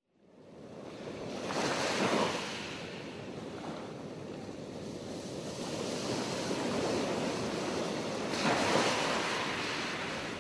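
Sea waves breaking and washing on a shore, fading in from silence, with two louder surges of surf about two seconds and about eight seconds in.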